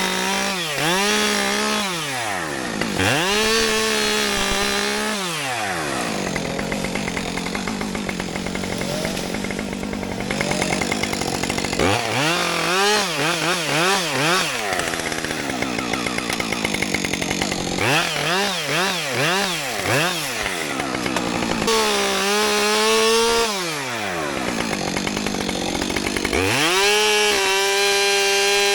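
Two-stroke chainsaw revved in repeated bursts, its pitch climbing and dropping, with longer stretches of steadier, lower running while the chain cuts into wood. Near the end it is held at high revs.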